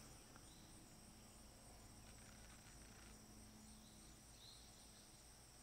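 Near silence with a faint, steady, high-pitched insect drone, like crickets, and a few faint short chirps.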